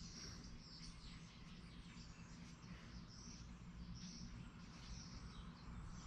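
Near silence: room tone with a steady low hum and faint, scattered high chirps.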